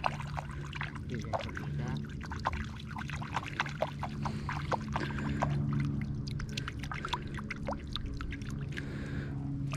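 Water trickling and dripping, with many small irregular splashes and clicks over a faint steady low hum.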